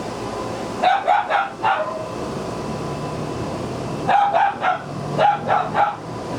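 Small dogs barking in quick, sharp yaps: a run of about four barks about a second in, then another run of about six near the end, over a steady background hum.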